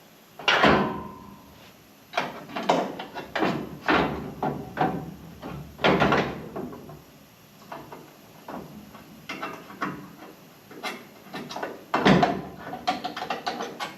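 Sheet-metal repair parts (a VW Bus rear jack support and outrigger) clanking, knocking and scraping as they are handled and set into place. The loudest knocks come about half a second, six seconds and twelve seconds in.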